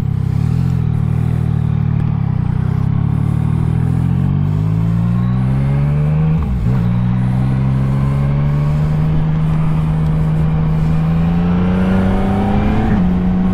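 Yamaha Tracer 900 GT's three-cylinder engine through a new Roads Italia Thunder Carbon exhaust, accelerating with rising pitch, a quick gear change about six and a half seconds in, then pulling steadily higher again in the next gear.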